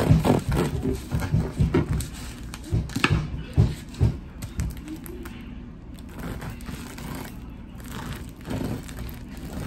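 A knife sawing through the crisp crust of a baked sourdough loaf: a run of short crackling strokes over the first four seconds or so, then fewer and quieter ones.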